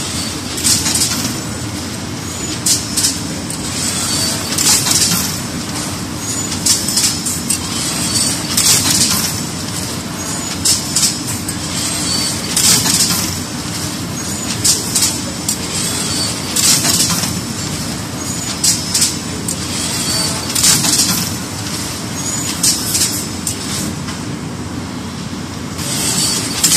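Van De Wiele AWM carpet loom with jacquard running at speed: a loud, steady mechanical clatter, with sharp hissing bursts recurring about every two seconds.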